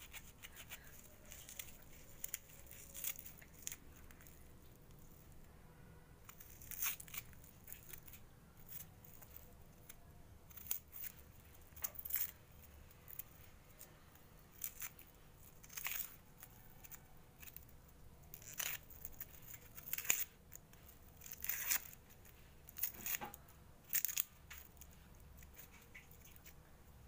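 Red onion being peeled with a small knife: dry papery skin scraped and torn away in short, irregular scratches.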